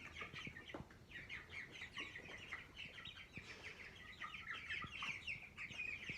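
A flock of young broiler chickens peeping, many short high chirps overlapping in a steady stream.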